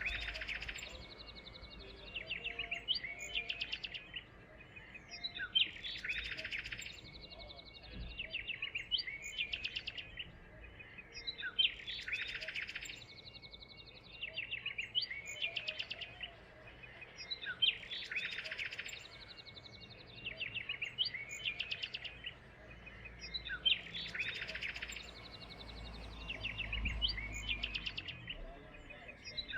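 Songbird singing a short, fast trilled phrase that repeats about every six seconds, with scattered single chirps in between.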